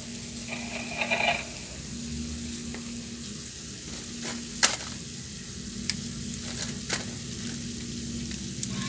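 Small motor of a battery-powered walking toy robot running with a steady hum and crackly hiss, with a few sharp clicks from its mechanism, the loudest about halfway through. A brief electronic tone sounds about a second in.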